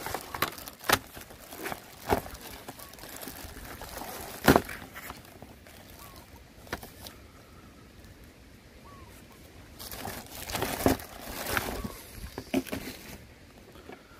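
Thin plastic bag crinkling and rustling as hands dig through old phones inside it, with hard clicks of the phones knocking against each other, the loudest about four and a half seconds in. The rustling dies down for a few seconds, then comes back about ten seconds in as a phone is pulled out and handled.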